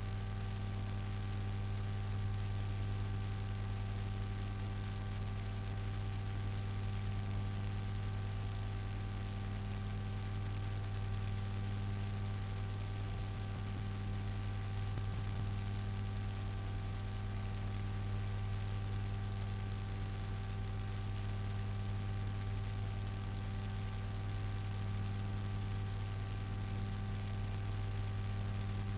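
Steady low electrical mains hum with a constant hiss, unchanging throughout.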